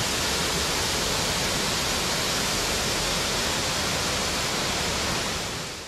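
Steady rushing of a torrent's water, fading out near the end.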